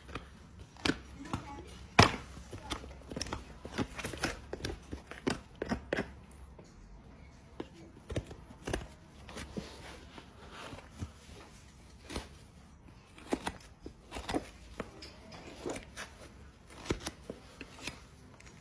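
Hoof trimming: irregular sharp cuts and snaps as a farrier's tools bite into the horse's hoof horn, with the loudest snap about two seconds in.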